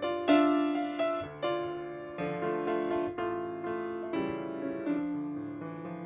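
Grand piano playing the introduction to a hymn: chords and melody notes struck one after another, each ringing and fading.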